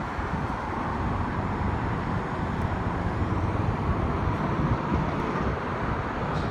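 Steady crackle of a stick-welding arc burning a 7018 electrode on a vertical (3G) weld.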